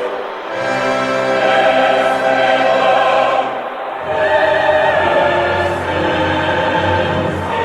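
Choral music with orchestra: a choir holds long, sustained chords, moving to a new chord about half a second in and again about four seconds in.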